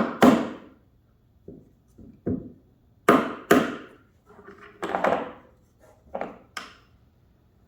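Hammer blows on an old bearing used as a driver, tapping a new drum bearing down into its seat in an LG front-load washer's tub housing. About ten sharp metallic taps come at uneven intervals, some in quick pairs, with a brief ring after the louder ones.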